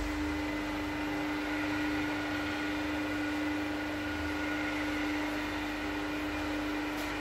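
Steady electric-motor hum from a planetary mixer, its agitator blades running while the lift raises the motor-head lid off the stainless-steel tank.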